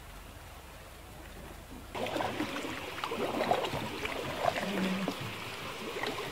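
Water lapping and gurgling against a plastic kayak hull and the rock close by, with small splashes and drips. It starts suddenly about two seconds in, after a faint low hum.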